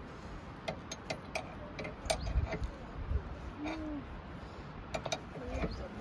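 Irregular metallic clicks and clinks of a car's scissor jack being worked with its crank handle, as the jack is lowered during a tyre change.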